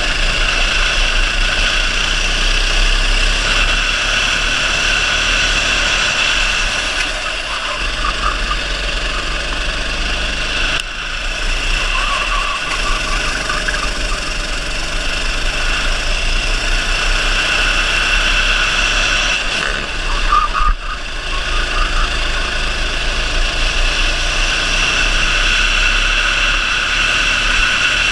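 Kart engine running hard through a racing lap, heard from the driver's seat, its sound dipping briefly twice, about a third and about two-thirds of the way in.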